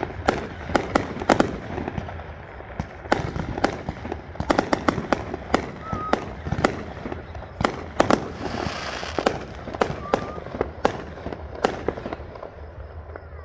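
Fireworks going off: a rapid, irregular series of sharp bangs, often several a second, some louder than others.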